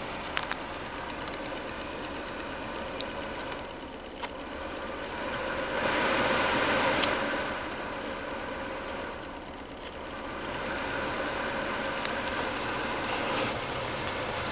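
Suzuki Alto HA24S's small three-cylinder engine idling steadily, with a few light clicks of switches. A broad rushing noise swells up about six seconds in, drops back, and rises again from about ten seconds in.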